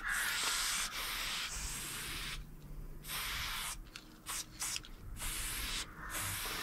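Aerosol spray paint can hissing as it is sprayed: a long spray first, then a pause and a run of short quick bursts before it sprays steadily again near the end.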